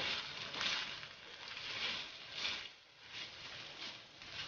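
Sliced onion, capsicum and carrot sizzling in oil in a nonstick frying pan as they are stirred and tossed with a slotted spatula, with repeated swishing, scraping strokes of the spatula through the vegetables.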